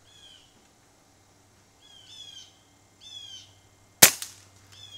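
A .22 AirVenturi AvengeX PCP air rifle fires one shot about four seconds in, a single sharp report. Before it, a bird calls three times in short high chirps.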